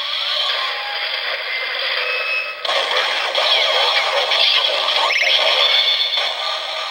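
Electronic music and sound effects from a toy Kamen Rider Zero-One driver belt's small speaker, thin and tinny with no bass. It shifts abruptly to a new sound about two and a half seconds in, while the belt plays its linked sound for the Kuehne Zetsumerise Key.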